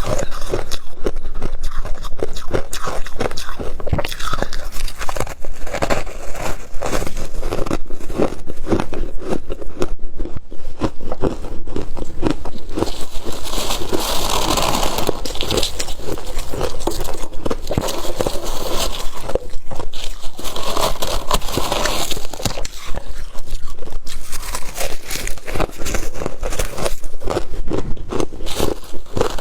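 Close-miked crunching of freezer frost being bitten and chewed, a dense run of crisp crackles throughout, thickening into heavier chewing crunches now and then.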